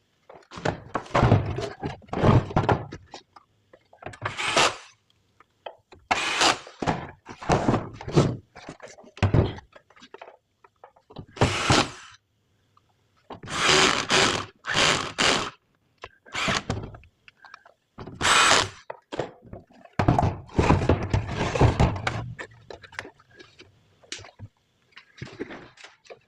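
Irregular short bursts of knocking and tool-handling noise during hands-on repair work, with gaps between them.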